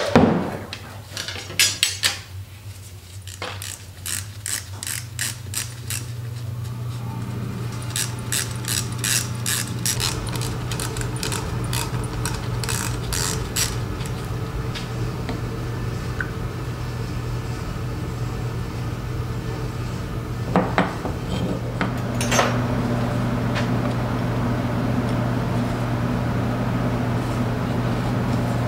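A socket ratchet clicks in quick runs as the bolts holding the overdrive's solenoid are unscrewed, with a few knocks of metal parts on the bench. A steady hum comes in about ten seconds in and gets louder near the end.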